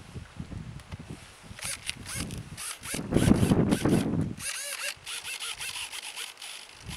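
Small remote-control airplane motor buzzing in short, scratchy bursts, its pitch swooping up and down. Wind buffets the microphone for a second or so in the middle.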